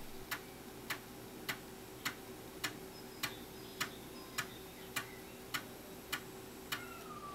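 A 3.5-inch floppy drive's head stepper clicks at an even pace, a bit under two clicks a second, as it steps across the tracks of a disk being read, over a faint steady hum. The clicks stop near the end as the read reaches its last track.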